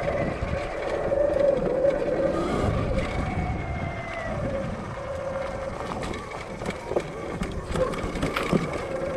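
Sur Ron electric dirt bike on the move: the electric motor and drivetrain whine steadily, the pitch drifting up and down a little with speed. Under the whine is a rush of wind and tyre noise, with a few short knocks.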